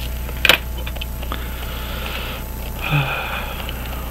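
A single sharp click about half a second in, then a person breathing out heavily and sniffing twice.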